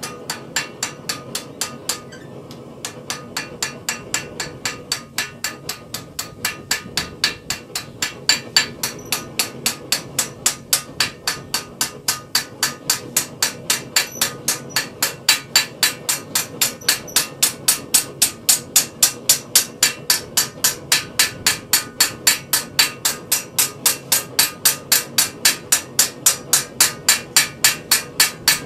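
Hand hammer striking the metal of a forged acanthus leaf over a stake in repoussé work: a long run of quick, even blows, about three to four a second, with a short pause about two seconds in.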